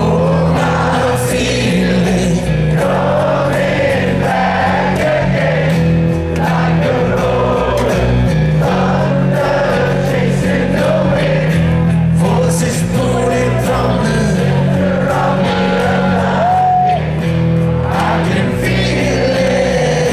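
A rock band playing live: a male lead singer singing over electric guitars, bass and drums, with the crowd singing along.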